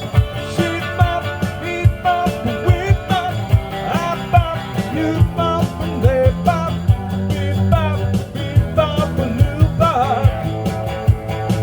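Pop-rock song performed live, with a steady drum beat, a thick bass line and a lead melody that bends and wavers in pitch.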